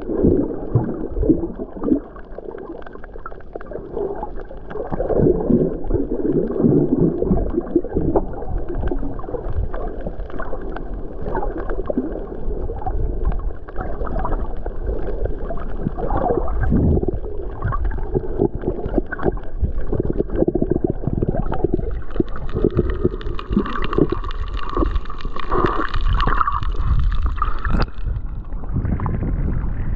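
Underwater water movement heard through an action camera's waterproof housing: a muffled, irregular gurgling and sloshing with a low rumble. About three-quarters of the way through, the sound brightens into a hissing splash as the camera reaches the surface.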